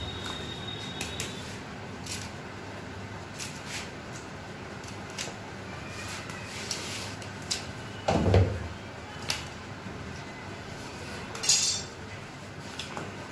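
A butcher's knife clicking and tapping against a granite countertop while cutting up a chicken. There is a heavy thump about eight seconds in and a short rasp a few seconds later.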